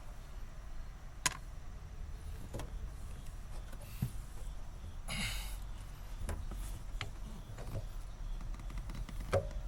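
Scattered single light clicks and taps of small parts and tools being handled while a wiper arm is refitted, over a low steady rumble, with a brief rustle about five seconds in.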